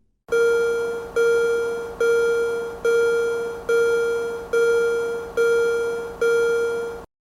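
Railroad crossing warning bell dinging: eight evenly spaced, fading rings on one pitch, a little more than one a second, cutting off suddenly near the end.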